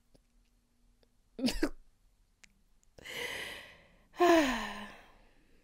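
A woman's voice mimicking vomiting: a short sound about a second and a half in, a breathy heave, then a louder retching sound whose pitch falls, the loudest part near the end.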